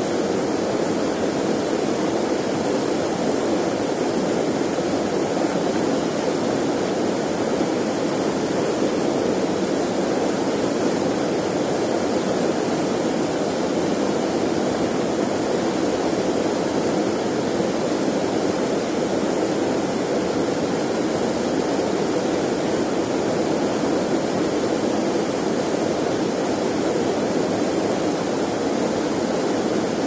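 Mountain river rushing over boulders in a small cascade: a steady, unbroken roar of white water.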